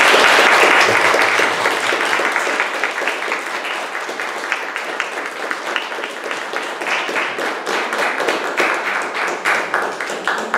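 Small audience applauding, a dense patter of hand clapping that is loudest at the start, eases off a little and dies away near the end.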